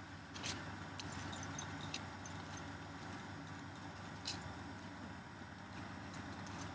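Quarter horse grazing close by: irregular sharp snaps and crunches of grass being torn off and chewed, over a low steady hum.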